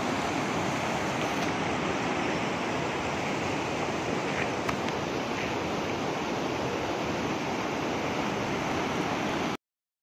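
Fast muddy floodwater rushing and churning white over a stone-and-debris bank, a steady rushing noise that cuts off suddenly near the end.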